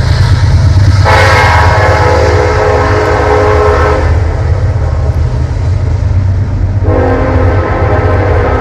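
An SD70ACe diesel locomotive's Nathan K5LLA five-chime air horn sounding two long blasts. The first lasts about three seconds, and the second starts near the end. A steady low rumble from the locomotive and train runs underneath.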